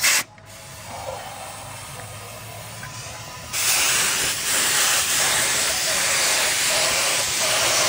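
Air spray gun with a cup beneath it hissing loudly as it sprays paint, starting about three and a half seconds in after a quieter stretch.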